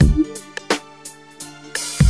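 Instrumental hip-hop beat with no rapping: deep bass-drum and bass hits, sharp snare and hi-hat strikes, and steady held notes underneath.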